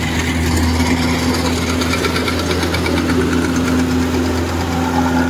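Kubota DC-105X combine harvester running under load as it cuts rice, its diesel engine giving a steady low hum with a fast mechanical rattle on top.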